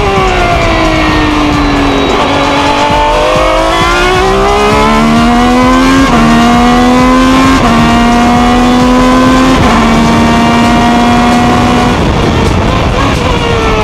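Ferrari 333 SP's V12 engine heard onboard. Its note falls at first, then climbs under acceleration, with three upshifts about six, seven and a half and nine and a half seconds in, each dropping the pitch. The note falls again near the end.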